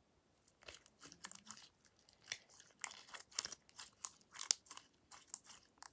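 Glue slime being stretched and squeezed in the hands, making faint, irregular sticky clicks and pops.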